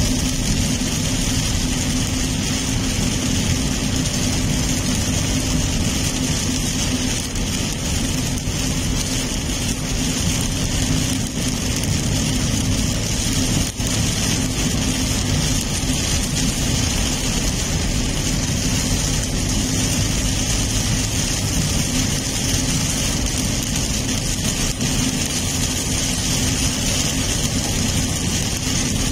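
Steady noise inside a car driving in heavy rain: rain hitting the windshield and roof over engine and tyre noise on the wet road.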